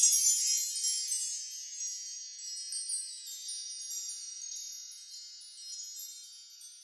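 Wind-chime sound effect: a shimmer of many high ringing tones that starts suddenly and slowly fades, with small fresh tinkles along the way.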